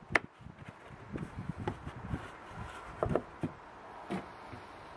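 Light knocks and clicks of wooden boards: a finger-jointed corner being pressed together by hand and set down on the table saw's wooden top. A sharp click just after the start is the loudest, with a few more knocks about three seconds in.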